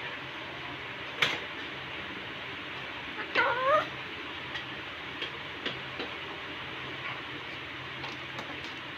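Indian ringneck parrot giving one short call made of quick rising squawks, about a third of the way in. A sharp click comes about a second in, with a few faint clicks later, over a steady background hiss.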